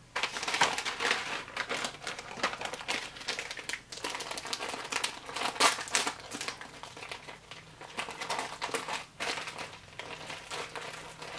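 MRE ration packets of foil and plastic crinkling and rustling as they are handled and moved about, with irregular crackles throughout.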